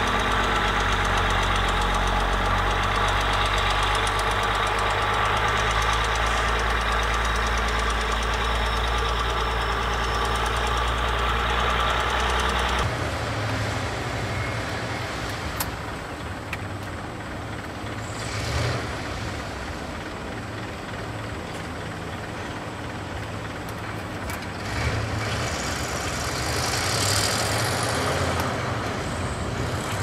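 Diesel engine of a small crawler bulldozer running hard and close, a dense steady clatter and rumble. About 13 s in it cuts abruptly to a dump truck's engine running more distantly as the truck tips its load of wet soil, with a couple of louder swells and a hissing rush near the end.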